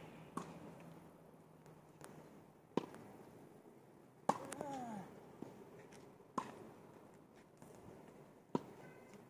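Tennis rally: a ball struck back and forth by rackets, a sharp knock every one and a half to two seconds. About four seconds in, the loudest stroke comes with a short falling vocal grunt.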